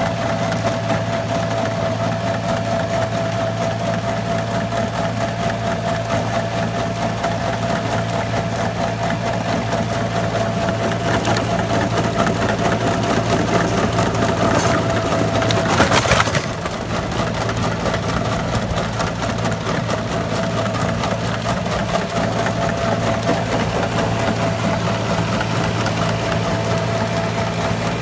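Yanmar Ke-2 compact tractor's diesel engine running steadily under load while its rear rotavator churns through soil. The sound swells briefly with a louder burst of noise about sixteen seconds in, then drops suddenly.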